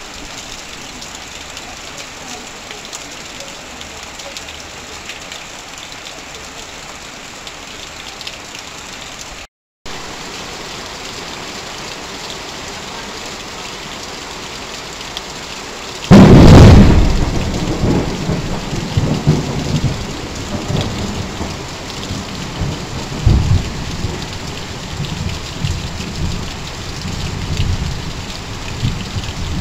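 Heavy rain falling steadily on corrugated tin sheets and leaves, with runoff pouring off a roof edge. The sound cuts out for a moment about a third of the way in. Just past halfway a loud clap of thunder breaks in, and its rumble rolls on in swells to the end.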